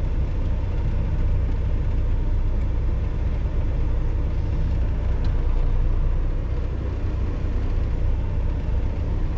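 Semi-truck's diesel engine running with a steady low rumble.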